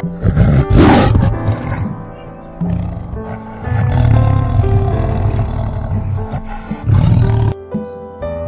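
Tiger roaring and growling in several deep bouts, the loudest about a second in, over background music. The roaring stops about a second before the end, leaving only the music.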